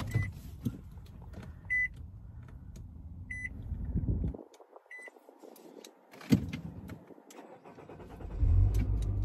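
A car's electric seat motor runs for about four seconds as the driver's seat is adjusted, then stops, while the car's warning chime beeps four times at an even pace, about every second and a half. A low rumble starts again near the end.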